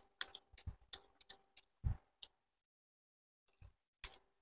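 Faint, sparse eating noises from chewing fried chicken feet by hand: a few short soft clicks and mouth smacks, spaced out, with a quiet gap of about a second past the middle.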